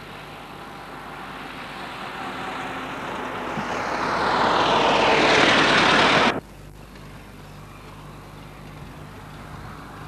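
Vintage Ford Model T driving past close by: its engine and road noise grow louder as it approaches, sweep down in pitch as it passes, and cut off suddenly about six seconds in. After that a quieter steady running sound of another car approaching.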